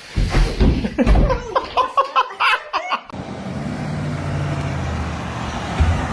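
Excited voices for about three seconds, then, after an abrupt change, a steady low motor-vehicle drone.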